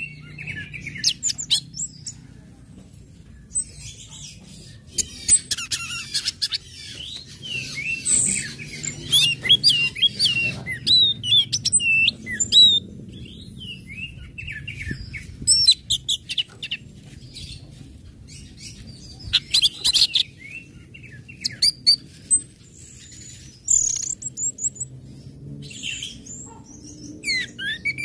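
Orange-headed thrush (anis merah) singing in bursts of quick high chirps and short whistled notes that sweep up and down, phrases broken by brief pauses, over a faint low hum.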